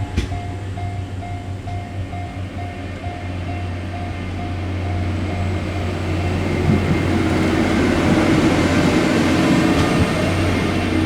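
Level-crossing alarm ringing in a steady repeating beat, about two and a half strokes a second, over the steady engine of a multiple tie tamper (track maintenance machine). The machine's noise grows louder from about halfway through.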